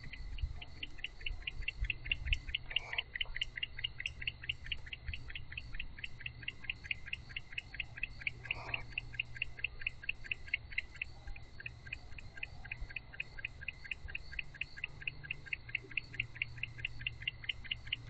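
Cricket chirping steadily and rhythmically, about four to five chirps a second, over a steady low hum.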